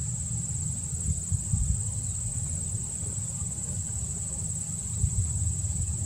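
Steady high-pitched insect chorus trilling without a break, over a low rumble that swells briefly about a second in and again near the end.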